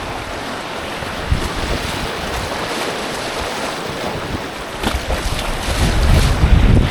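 Rushing creek water around an inflatable kayak running downstream, with wind buffeting the microphone, the buffeting heaviest near the end.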